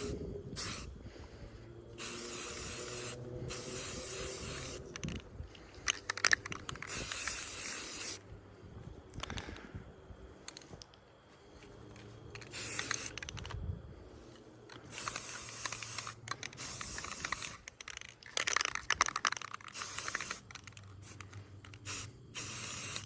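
Spray-paint can hissing in a series of short bursts, each one to two seconds long with pauses between: light dusting coats being laid onto a rifle.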